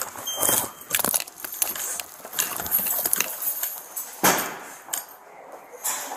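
Knocks, clicks and metal jingling as a heavy steel door is opened and walked through, with the loudest knock about four seconds in.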